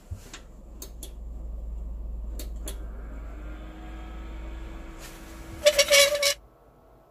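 Open desktop PC running on a replacement power supply: a steady low hum with a fan spinning up in a slowly rising then steady whine, and a few sharp clicks in the first three seconds. About five and a half seconds in there is a brief loud noise, and the hum then stops.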